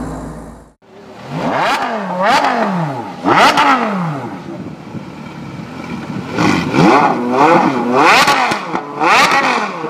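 An Audi R8's 5.2-litre V10 engine fading as the car drives off, cut off abruptly under a second in. Then an engine revs in a string of blips, each rising and falling in pitch: two spaced apart, then several close together near the end.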